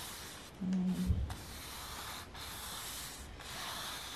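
A large flat paintbrush dragged across a stretched canvas in repeated strokes, a dry, scratchy rubbing with short breaks between sweeps. A brief low hum sounds about a second in.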